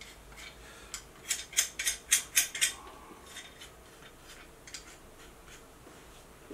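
Small metallic clicks and clinks from handling a refractor guidescope in its metal guidescope rings and thumbscrews, with a quick run of about seven sharp clicks between one and three seconds in.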